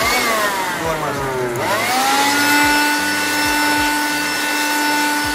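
Bosch Professional electric air blower running, blowing dust out of an ASIC miner's cooling-fan panel. Its motor whine winds down over the first second and a half, then speeds back up about two seconds in and holds steady, over a rush of air.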